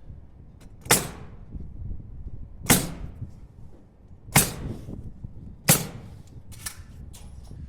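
Pneumatic nail gun firing nails to fasten 2x2 strips: four sharp shots and a fainter fifth, roughly a second and a half apart.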